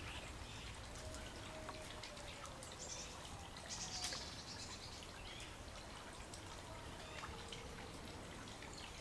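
Steady outdoor background noise, a faint hiss with scattered small clicks like trickling or dripping water, and a brief louder hiss about four seconds in.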